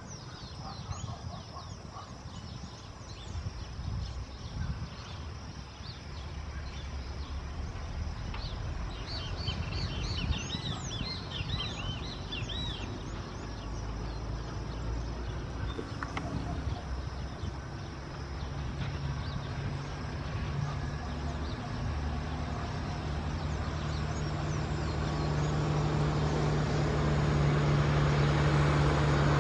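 Airbus A319 airliner on final approach, its engines' low hum growing steadily louder as it comes in over the runway threshold. Birds chirp briefly about a third of the way in.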